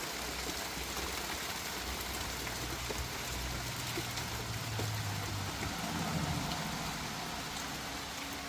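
Steady rain falling during a thunderstorm, an even hiss of drops.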